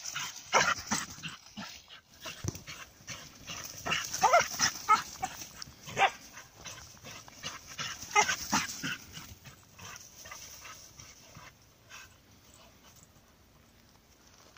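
Brittany spaniel puppies playing rough, with short high yips and squeals in bursts and scuffling, busiest in the first nine seconds and then dying down.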